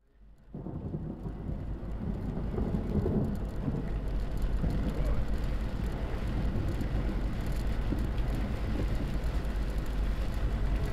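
Rain with a steady deep rumble underneath, fading in over the first half second.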